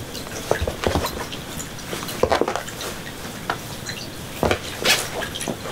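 Irregular light knocks, taps and scuffles of a kitten and an adult cat play-fighting on a floor mat, with a cluster of quick knocks a little past halfway and another near the end.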